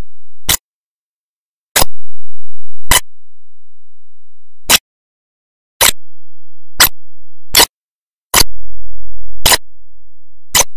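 About ten sharp, isolated clicks at uneven spacing, roughly one a second, with nothing else audible between them.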